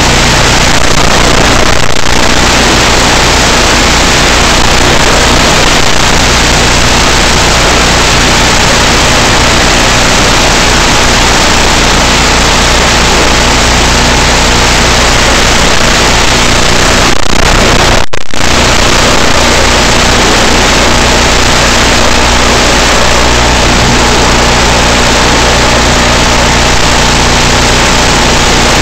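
Steady, loud rushing noise with a constant low hum on the FPV plane's flight audio, like an electric motor and propeller at cruise under wind. It drops out for an instant about two-thirds of the way through.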